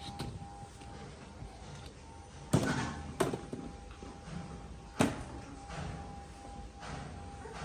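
Three sharp knocks, hollow plastic balls wedged in a metal window grille being pushed and knocked against the bars and glass by hand.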